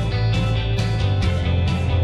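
Background music: a guitar strummed in a steady rhythm, about two to three strokes a second, over a sustained bass.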